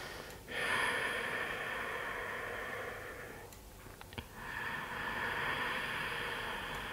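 Slow, deep breathing close to the microphone: two long breaths of about three seconds each with a short pause between them, and a small click in the pause.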